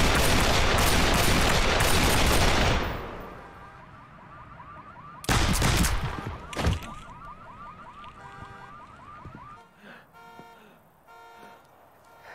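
A burst of handgun fire for the first few seconds. Then a car alarm chirps in a fast repeating pattern, cut through by two more gunshots about five and six and a half seconds in. The alarm stops about ten seconds in.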